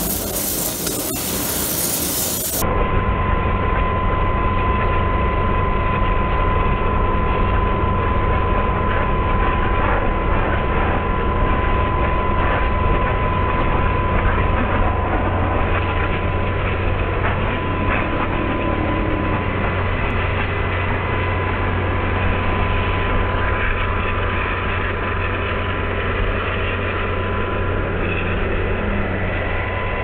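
Propane-fired mono-tube steam boiler running flat out: a steady rushing noise from the ring burner and the steam jet blasting from the coil's outlet, with a low hum and a steady high whine running through it.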